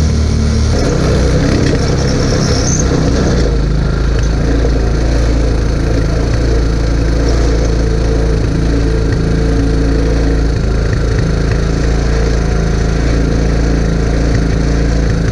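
Small Chinese 150 cc ATV's single-cylinder engine, heard from a camera mounted on the quad. It comes off the throttle in the first few seconds, then idles steadily.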